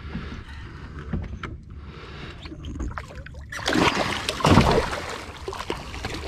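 Water sloshing against a small boat's hull, with a loud burst of splashing about three and a half seconds in that lasts about a second and a half, as a hooked Atlantic sharpnose shark thrashes at the surface while being landed.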